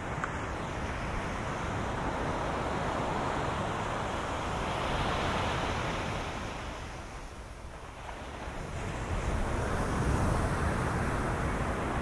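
Atlantic surf washing onto a sandy beach: a steady rush of breaking waves that eases off about two-thirds of the way through, then builds again with the next wave.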